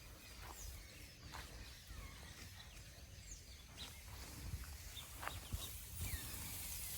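Faint outdoor field ambience with a few short, faint bird chirps and some light clicks scattered through it.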